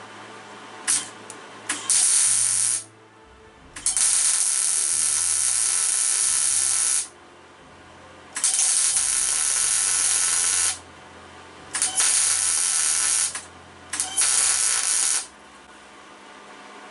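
Electric arc welder sputtering and crackling in five bursts of one to three seconds, with a few short blips of arc strike between them, as a nut is welded onto a broken stud to extract it.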